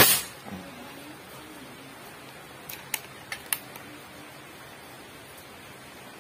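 Air rifle fired once, a single sharp crack with a brief tail, followed about three seconds in by a few short sharp clicks.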